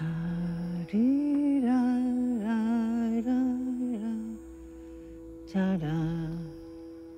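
A woman's voice humming a slow melody in long held notes with vibrato, over a steady sustained drone note. The humming pauses about halfway through, then returns for one short phrase.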